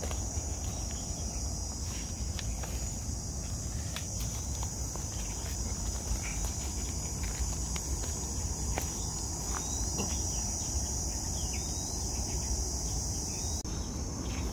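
A steady, high-pitched chorus of insects, with footsteps scuffing on dry leaf litter and twigs.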